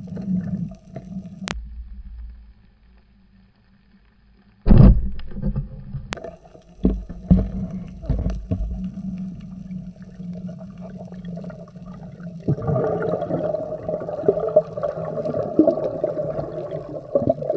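Underwater sound heard through a diver's camera: a steady droning hum with water gurgling and irregular knocks. The loudest knock comes about five seconds in. The hum swells and gains higher tones about two-thirds of the way through.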